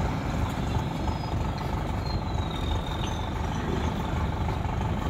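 Preet combine harvester's diesel engine running, a steady low rumble.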